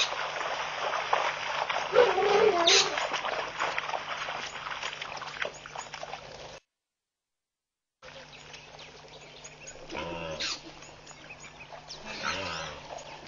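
Wildebeest herd on the move, hooves clattering and scuffing on dusty ground, with several short grunting calls. The sound cuts out for about a second and a half past the middle and comes back quieter, with a few more grunts.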